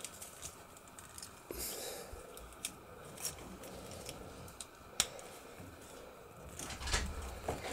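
Small clicks and rubbing of hard plastic as an action figure and its red plastic ring accessory are handled and fitted into the clip on its back, with a sharper click about five seconds in.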